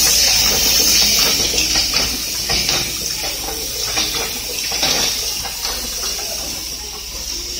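Child-resistant cap assembly and wadding machine running, with a steady high hiss and irregular clicks and clacks from its rotary turret tooling.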